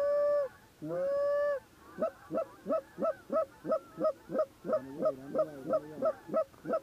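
Goose honking and clucking: two long honks, each breaking upward into a held note, then a steady run of short clucks about three a second, with a second, lower wavering voice joining in around the middle.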